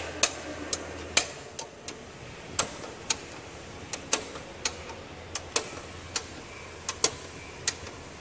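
Sharp, irregularly spaced metallic clicks, roughly two a second, from hand tools being turned on fasteners in an ABB VD4 vacuum circuit breaker's operating mechanism. A low steady hum runs underneath.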